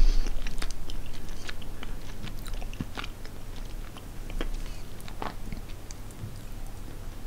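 Close-up chewing of a soft fruit gum with a foam base and liquid sour filling: irregular small wet mouth clicks that slowly fade.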